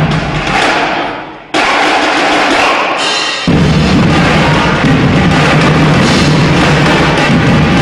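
Loud drum-heavy music for a drill team routine. It cuts abruptly to a new section about a second and a half in and again about three and a half seconds in, after which a heavy, driving bass-drum pattern runs.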